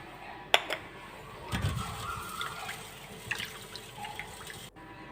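Water splashing in a kitchen sink as fruits and vegetables are washed, with a sharp knock about half a second in. The sound cuts off suddenly near the end.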